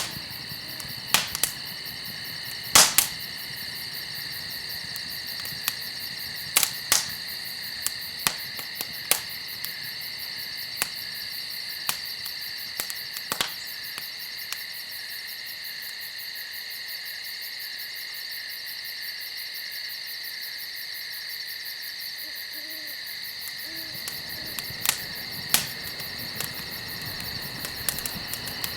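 Campfire crackling, with irregular sharp pops and snaps from the burning wood. Under it runs a steady high-pitched insect chorus. A few faint low calls come about three-quarters of the way through.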